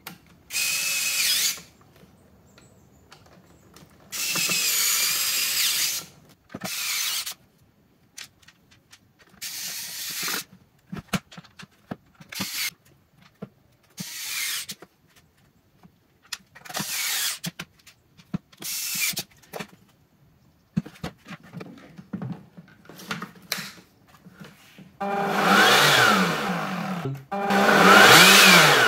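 Cordless screwdriver driving screws in short whirring bursts of half a second to two seconds, with pauses between. Near the end come two louder motor runs of about two seconds each, the pitch rising and then falling.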